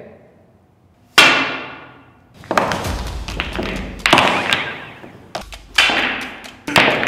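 Dramatic impact sound effects for anime-style pool shots. A sharp, ringing hit about a second in fades away, then four heavy booming hits follow, each dying away over about a second.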